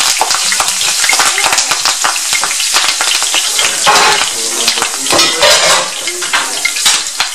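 Fresh sweet basil leaves deep-frying in hot oil in a cast iron skillet: loud sizzling with a dense run of quick crackling pops, flaring up about four and five and a half seconds in.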